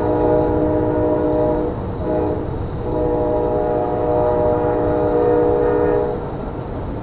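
Locomotive air horn sounding a chord: a long blast that ends near two seconds in, a short blast, then another long blast of about three seconds, the long–short–long close of a grade-crossing signal. A steady low rumble runs underneath.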